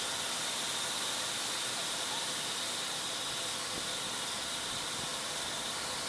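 Steady background hiss with a faint, thin high whine running through it; no distinct knocks or clicks stand out.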